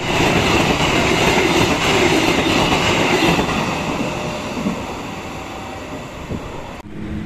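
Passenger train carriages rolling past close by on the track, loud for the first three seconds or so, then fading as the last carriage moves away; the sound cuts off abruptly near the end.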